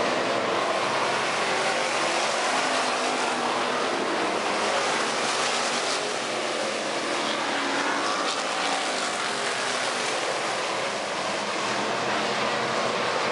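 Engines of a field of hobby stock race cars running laps around a dirt oval, a steady mass of engine noise, with one car passing close about halfway through.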